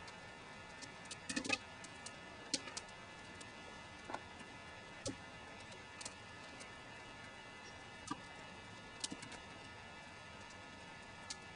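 Wood fire crackling in the firebox of a wood-burning kiln: irregular sharp pops and clicks over a faint steady hiss, with a cluster of louder pops about a second and a half in.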